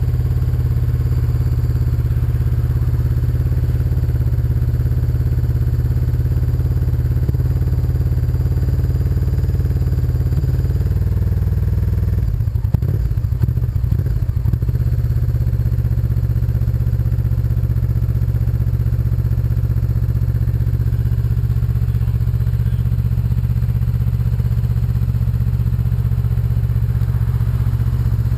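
Motorcycle engine idling steadily, with a couple of seconds of uneven thumps and clatter about twelve seconds in.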